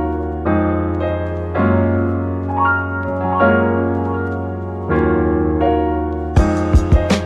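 Background lo-fi hip-hop music: mellow piano chords changing every second or so, with a drum beat coming in near the end.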